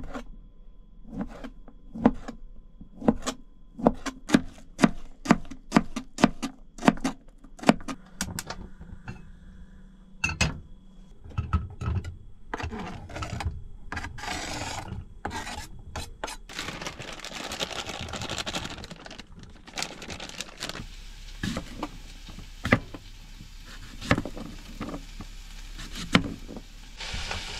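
A kitchen knife chopping vegetables on a cutting board, about two strokes a second. Then, a little over halfway through, food starts sizzling in a frying pan, with occasional knocks and scrapes of a utensil.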